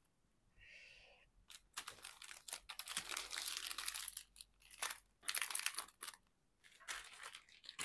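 Plastic packaging of diamond painting kits crinkling and rustling in irregular bursts as the bagged canvases, drill bags and a packeted applicator pen and tray are handled.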